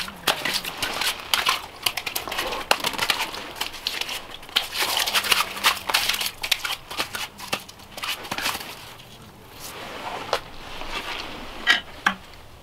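Close crunching and crackling of packed snow and slushy ice being moved on and handled, with clothing rustle, busy for the first nine seconds or so and then down to a few scattered clicks.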